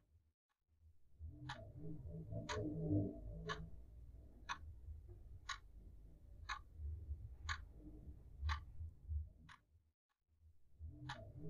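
A clock ticking about once a second, sharp, even ticks over a low rumble. The sound starts about a second in, drops out briefly near the end and then resumes.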